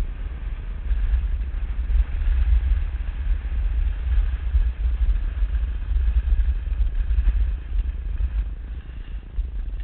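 Wind buffeting the microphone of a skier's camera during a downhill run: a heavy, gusting low rumble with a faint hiss over it, easing slightly near the end.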